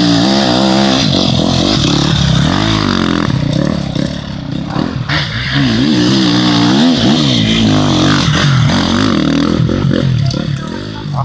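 Enduro dirt-bike engines revving hard, their pitch rising and dropping again and again with throttle and gear changes.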